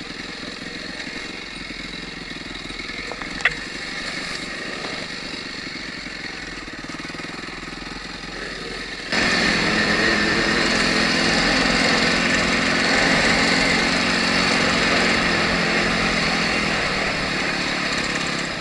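Enduro dirt bike engine running under way, heard from a camera mounted on the bike or rider, at moderate revs at first with one sharp click about three and a half seconds in. About halfway through it jumps suddenly much louder, the engine pulling harder with a rush of noise.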